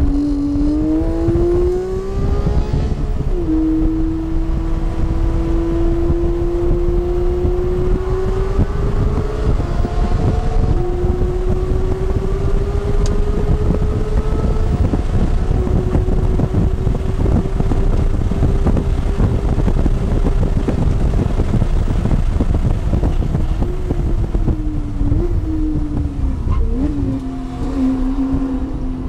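Porsche sports car engine heard from inside the cabin under hard acceleration, with two upshifts in the first ten seconds. It then holds high revs at speed with heavy wind and road roar. Near the end it lifts off and drops to a lower tone, with quick rev blips on the downshifts.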